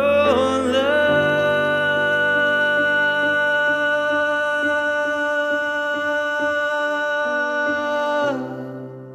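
A man sings one long held note over sustained electric-piano chords from a stage keyboard. The voice slides into pitch at the start and stops about eight seconds in. The keyboard chord then changes and fades away.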